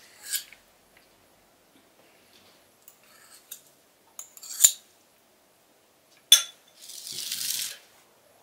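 Metal spoons clinking and scraping on plates, with two sharp clinks a little under two seconds apart and a scrape about a second long near the end.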